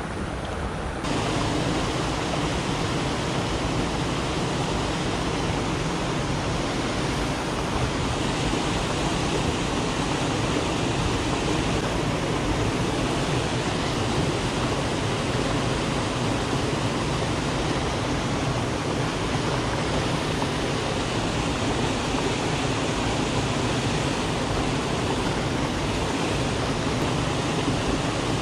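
River water pouring over a concrete weir into the pool below: a steady, unbroken rush of white water.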